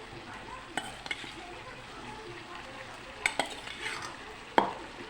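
Chicken curry frying in masala and oil in an open pan, a low steady sizzle, as fried potato and papaya pieces are stirred in with a spatula. A few sharp knocks, the loudest near the end.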